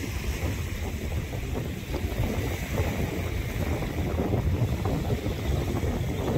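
Wind buffeting the microphone, a steady low noise that flutters unevenly, over small waves washing onto a sandy shore. No bird calls stand out.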